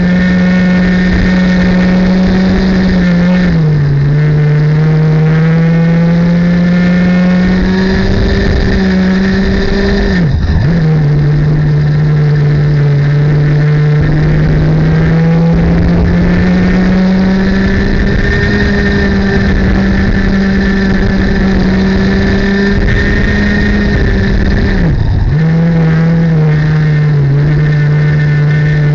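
Racing kart's two-stroke engine at high revs, heard onboard. Its pitch climbs slowly along the straights and drops sharply three times as the driver lifts off for corners, about 3.5, 10.5 and 25 seconds in, each time picking up again.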